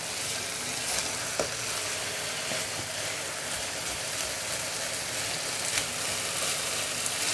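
Potatoes and fenugreek leaves sizzling in a non-stick wok over a raised flame as the last of their water cooks off, stirred and mashed with a spatula, with a few light knocks of the spatula.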